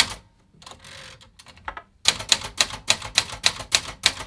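Manual Remington Streamliner typewriter being typed on: a single key strike, a short hiss, then a quick run of about ten keystrokes at roughly five a second in the second half.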